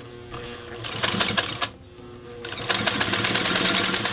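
Singer 99K sewing machine stitching through soft leather: a short burst of rapid, even needle strokes about a second in, a brief pause, then a longer steady run from near the three-second mark.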